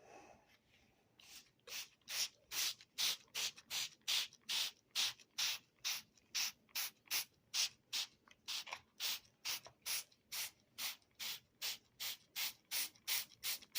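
Quick, even swishing strokes, about three a second, starting about a second in: something being rubbed back and forth.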